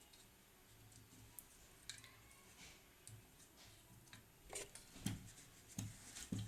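Faint, scattered light clicks and taps of tools handled against the circuit board and its metal parts during soldering, with a few sharper knocks in the last two seconds.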